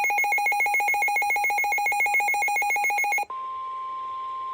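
A rapidly pulsing, ringing electronic tone cuts off about three seconds in and gives way to a single steady tone: the 1050 Hz NOAA Weather Radio warning alarm tone that precedes the broadcast voice warning.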